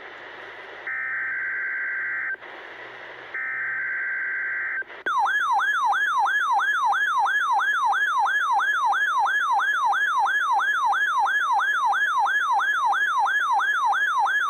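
Two bursts of the EAS SAME digital header, buzzy data tones about a second and a half each. From about five seconds in, a weather alert radio's siren-style alarm sounds: a loud rising sweep repeated about three times a second, set off by the Required Weekly Test.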